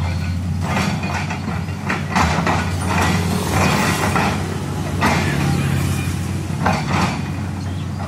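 Liugong 922D tracked excavator working: its diesel engine runs with a steady low hum under hydraulic load while the bucket digs and lifts soil, giving several short bursts of scraping and clanking.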